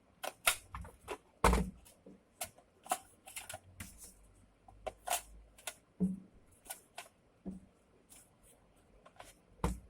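Foam darts being pushed one at a time into a Nerf Elite Retaliator's plastic magazine: a run of irregular, short clicks and taps, about one or two a second.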